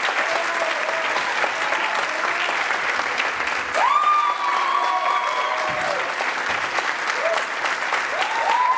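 Theatre audience applauding steadily at a curtain call, with voices cheering and calling out about four seconds in and again near the end.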